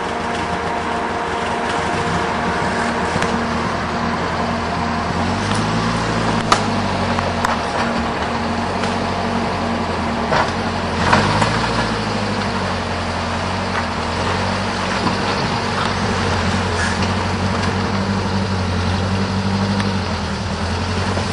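Off-road 4x4 engine running under load, revving up and easing off twice, with a few sharp knocks around the middle.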